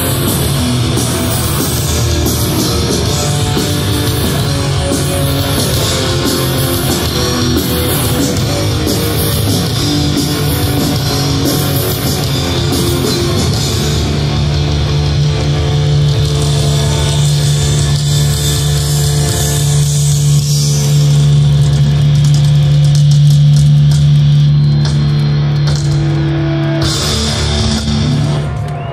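Heavy metal band playing live over a concert PA: distorted electric guitars over fast drums, then about halfway through a long held, ringing chord that stops shortly before the end.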